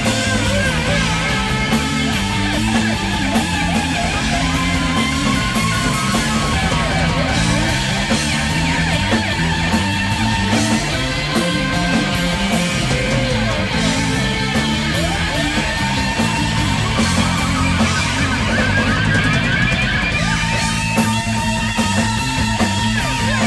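Loud live stoner-rock band playing: heavy bass and drums under long held notes from a lap steel guitar.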